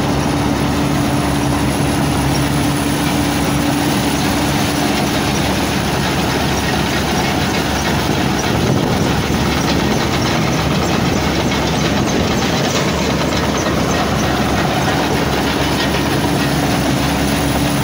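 Massey Ferguson MF 186 combine harvester running close up while threshing wheat: a steady engine hum under the continuous rattle and rush of the machine's working parts.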